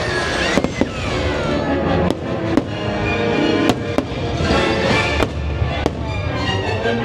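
Fireworks bursting over the fireworks show's music: a string of sharp bangs, roughly one a second and some in quick pairs, over loud music.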